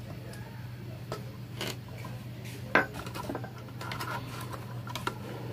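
Light clicks and clinks of metal tools and a circuit board being handled, with one sharp click about three seconds in and a smaller one near the end, over a steady low hum.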